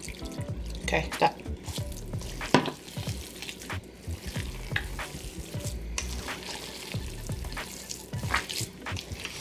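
Bare hands squishing and kneading a wet raw ground-beef meatloaf mixture, with milk just added, in a stainless steel bowl: irregular wet squelches, the sharpest about two and a half seconds in.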